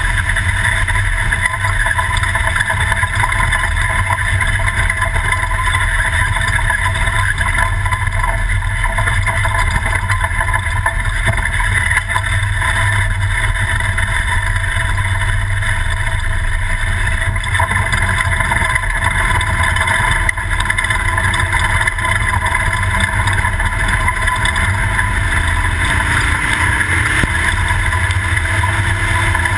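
Toyota Class 2000 desert race truck driven hard off-road: a loud, steady mix of engine and running noise, with the engine pitch climbing near the end.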